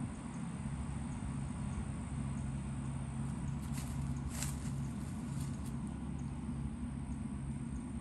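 A steady low mechanical hum, like an engine running, holding one even pitch, with a few faint short clicks about four seconds in.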